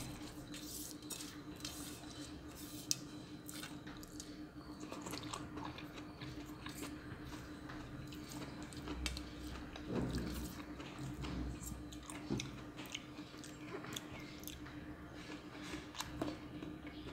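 Close-up chewing of soft jackfruit mixed with honey and grated coconut, with many small irregular clicks over a steady low hum.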